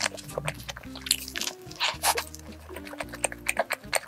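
Close-miked biting and chewing of a soft egg sandwich on toasted bread: a quick, irregular run of wet clicks and squishes over background music of held low chords.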